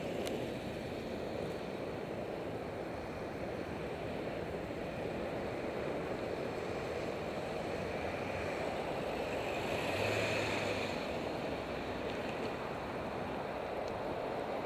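Steady rush of road traffic and wind on a bicycle helmet camera's microphone while riding in a bike lane beside a busy highway, swelling once about ten seconds in.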